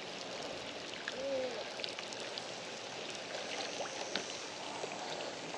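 Steady hiss of outdoor riverside ambience with moving water, broken by scattered faint ticks and a brief murmur of a voice about a second in.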